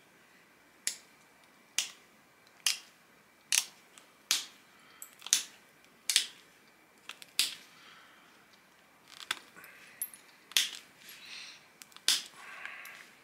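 Flakes popping off the edge of a round stone biface under a hand-held pressure flaker: about eleven sharp clicks, roughly one a second, as the edge of the disc is finished. Softer rubbing sounds come between the clicks in the last few seconds.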